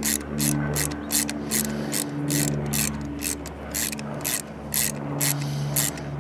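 Ratchet wrench turning a spark plug socket, its pawl clicking sharply about two to three times a second in uneven runs as a spark plug is backed out, over a steady low hum.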